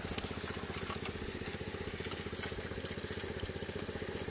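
Small gas engine powering a gold prospecting trommel, running steadily with a fast, even pulse.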